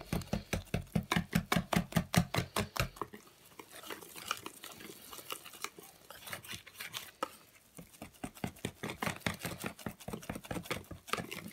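Wire hand whisk beating thick cake batter in a plastic bowl: a fast, even rhythm of about five strokes a second that turns softer and less regular about three seconds in.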